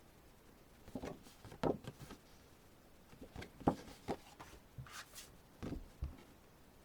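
Paper and card album contents being handled: a series of short rustles and light taps, the loudest a little past the middle.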